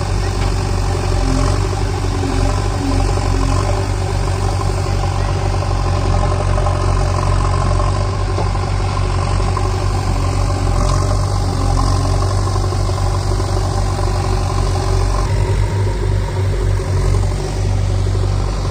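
JCB 3DX backhoe loader's diesel engine running steadily at low revs, its low note wavering briefly near the end.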